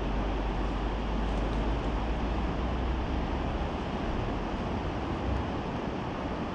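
Steady rushing noise with a deep, uneven rumble underneath: wind on the microphone over the rush of flowing river water.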